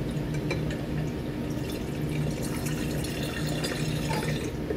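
Methoxide solution (sodium hydroxide dissolved in methanol) poured from a glass beaker into a flask of warm vegetable oil, trickling and splashing, strongest in the second half and stopping shortly before the end. A steady low hum runs underneath.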